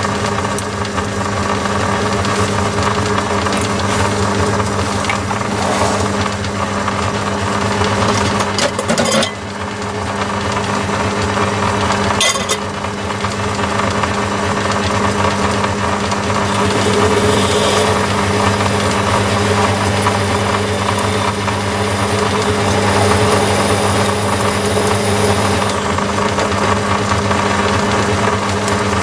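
Myford lathe running steadily with a constant motor and belt-drive hum, while a tailstock drill bores the tapping-size hole in a soft steel MT2 arbor. A higher cutting sound joins about halfway through, and there are two sharp clicks in the first half.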